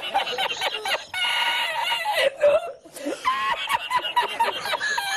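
A man laughing uncontrollably in long, high-pitched cries, broken by short gasps for breath about a second in and again near three seconds in.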